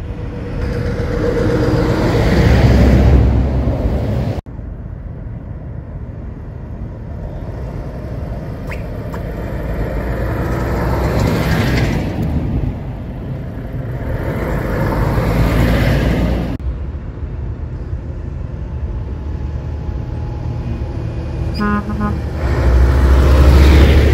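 Heavy trucks, a Scania and a Volvo FH among them, driving past one after another, each swelling to a loud engine-and-tyre rumble as it goes by. A horn toots briefly a couple of seconds before the loudest pass, a large bus close by near the end.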